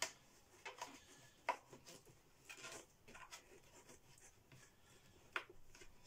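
Faint rubbing and a few light clicks as a furniture guard strip is pressed by hand around the rim of a Hitachi CV-95N vacuum cleaner's plastic hood.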